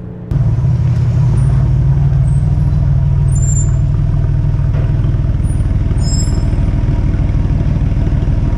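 Porsche 996 Carrera 4's freshly rebuilt flat-six engine, bored out to 3.8 litres, running steadily as the car is driven, a loud low rumble that comes in abruptly just after the start.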